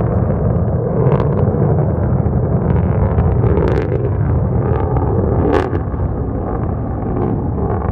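Rocket motor's exhaust rumbling steadily as it climbs, with a few sharp crackles, the loudest about five and a half seconds in.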